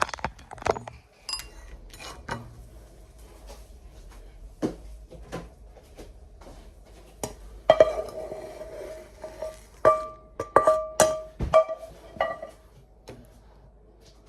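Dishes and utensils clinking and knocking in a kitchen: scattered taps at first, then a run of ringing clinks on a plate or bowl from about eight seconds in.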